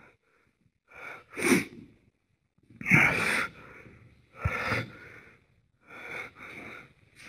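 A person's breath: a series of sharp, noisy bursts about every second and a half, the loudest like a sneeze.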